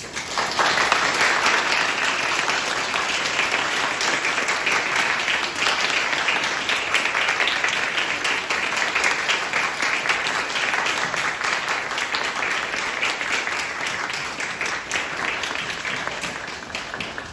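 Small audience applauding. The clapping starts sharply, holds steady, then thins out near the end.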